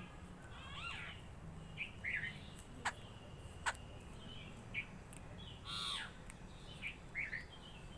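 Several birds calling: short scattered chirps, two sharp clicks a little before halfway, and a longer, rougher call about six seconds in.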